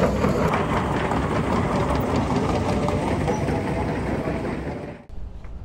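Diesel engines of a queue of tracked Hitachi excavators running, with the clatter of their steel tracks as they move. The sound cuts off suddenly about five seconds in, leaving a quieter low rumble.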